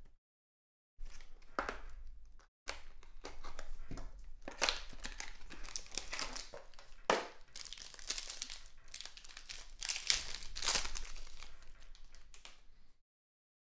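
Hockey card pack wrapper being torn open and crinkled by hand, with the cards handled. It starts about a second in, has a few sharper crackles, and stops shortly before the end.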